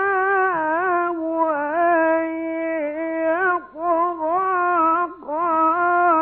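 A male Quran reciter chanting in the drawn-out, melodic mujawwad style, holding long vowels with wavering ornaments and pitch turns. He breaks off briefly twice near the middle.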